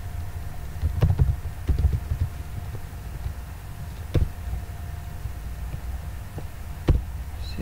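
Scattered sharp clicks of computer keyboard keys and a mouse over a steady low hum with a faint steady tone.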